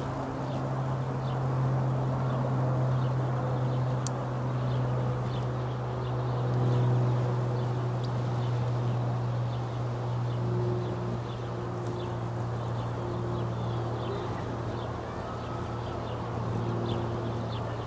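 Outdoor backyard ambience: a steady low hum runs throughout, with faint, short high chirps of small birds scattered over it.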